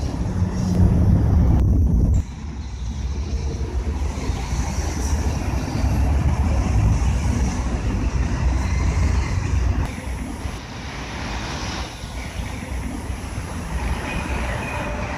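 Road traffic on a multi-lane city avenue: a steady rumble of passing cars and a bus. The level drops suddenly about two seconds in and again near ten seconds.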